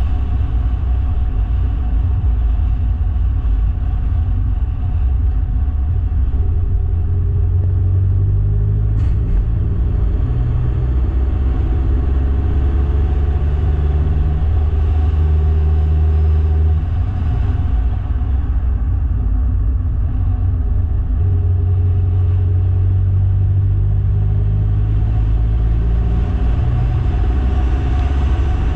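Vehicle engine running as it drives along, a steady low drone whose pitch slowly drifts up and down, with a brief click about nine seconds in.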